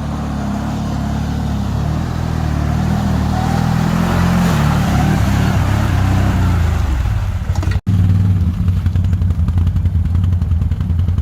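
ATV engine running steadily, gradually getting louder. It cuts out abruptly for a split second about eight seconds in, and then continues louder and rougher.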